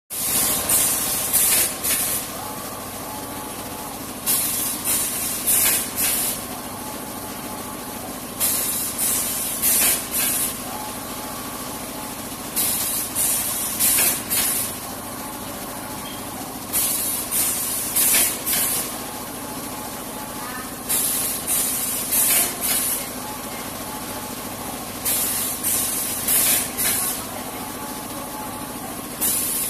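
Disposable dog diaper pad making machine running in a steady repeating cycle: about every four seconds a cluster of four or five sharp air hisses, over a continuous mechanical hum with a faint steady tone.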